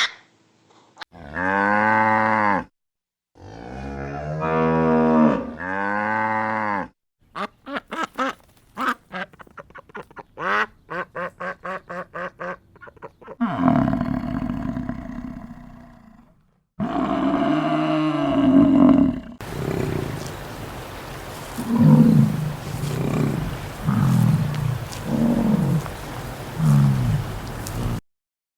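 A succession of different farm animal calls: several long pitched calls early on, a run of quick pulsing calls in the middle, then short low calls about once a second near the end.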